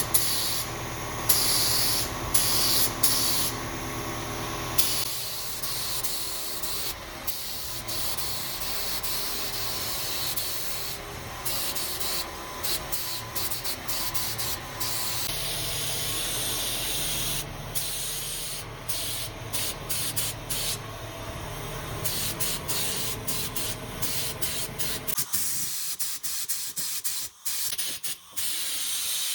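Air spray gun spraying primer: a hiss that starts and stops over and over as the trigger is pulled and released for each pass.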